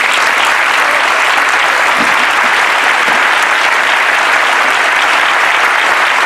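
A crowd applauding, with dense, steady clapping.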